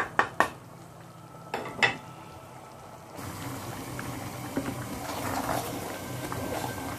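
A few sharp knocks of utensils against a cooking pot, then a pot of vegetable soup bubbling steadily at the boil from about three seconds in.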